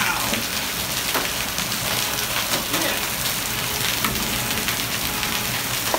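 Heavy hail, stones larger than marbles, falling with heavy rain onto concrete: a steady loud hiss of rain dotted with many sharp ticks of hailstones striking.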